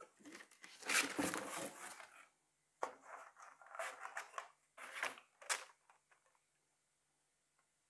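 A beeswax foundation sheet being laid into a wired wooden hive frame and the frame handled on a board: a run of uneven rustling, sliding and scraping noises, with a short sharp click about five and a half seconds in.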